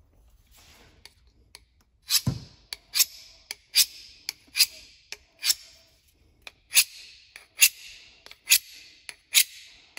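Knife blade stroked freehand along a sharpening rod, about one stroke a second from about two seconds in, each stroke a sharp click followed by a short scrape.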